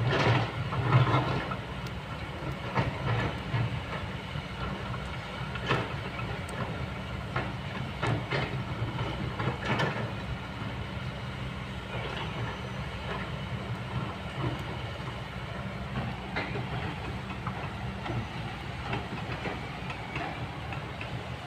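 Kobelco long-reach excavator's diesel engine running steadily, with scattered knocks and clanks as the bucket works among the riverbank stones, the loudest about a second in.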